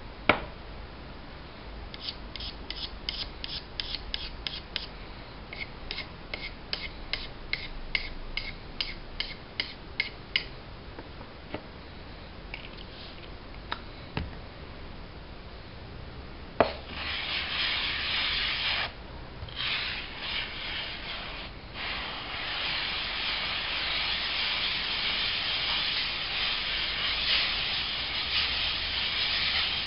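JCK Special 1000/4000 Japanese water stone being lapped flat, its 1000 grit side rubbed back and forth on a glass plate with silicon carbide grit: a continuous gritty scraping that starts after a knock a little past halfway, with two short pauses. Before it, a run of light regular ticks, about two or three a second.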